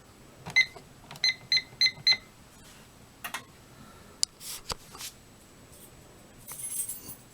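Fire alarm control panel's keypad beeping as buttons are pressed to reset the system: one short beep, then four quick beeps in a row, followed by a few scattered clicks.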